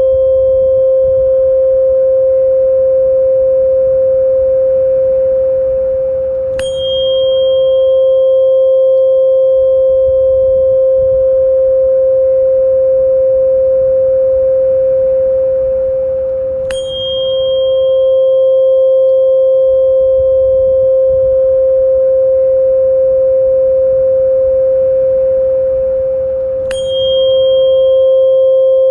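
Steady electronic pure tone a little above 500 Hz, with fainter higher tones above it, played as a tinnitus-relief frequency. About every ten seconds the level dips briefly, and a click with a short high ring marks the restart of the loop, three times in all.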